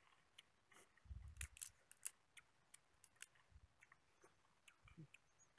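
Faint, sharp clicks and crackles of a cooked rice-field crab's shell being cracked and picked apart by hand and chewed, with a few soft low thumps among them, busiest in the first half.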